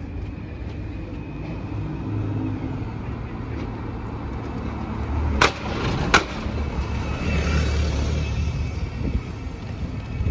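Road traffic, with a single-decker bus engine running close by in a steady low rumble. Two sharp clicks come a little over halfway through.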